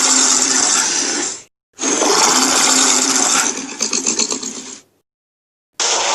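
Separate sound-effect clips of loud rushing noise, like pouring water or storm wind, each starting and stopping abruptly with dead silence between. The second clip turns into rapid crackling near its end, and a third clip begins shortly before the end.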